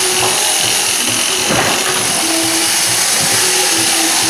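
Electric sheep-shearing handpiece running steadily, its cutter buzzing with a high whine as it clips the fleece off a sheep.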